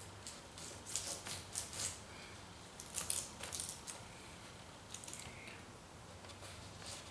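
Aluminium foil tape pulled off its roll, torn and pressed down, heard as several short, crisp rips and crinkles in small groups.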